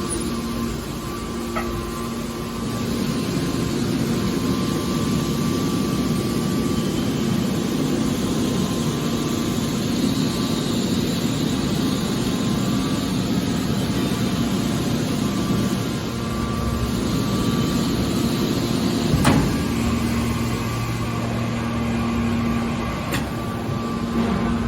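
Hydraulic scrap metal baler running: a steady machine hum and noise, with one sharp knock about 19 seconds in.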